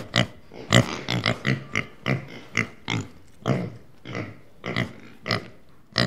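A group of piglets grunting, a quick run of short separate grunts, two or three a second.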